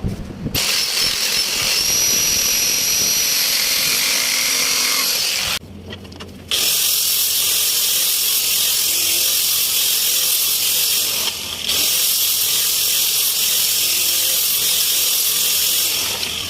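A handheld power tool running steadily in three long runs, with a high whine and hiss, stopping briefly twice.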